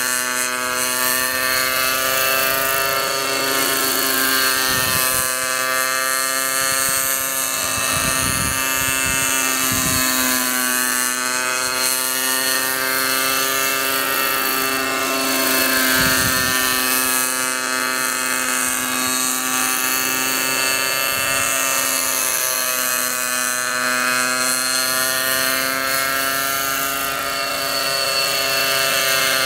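Radio-controlled model helicopter in flight, its motor and rotors giving a steady high whine whose pitch rises and falls every few seconds as it passes back and forth.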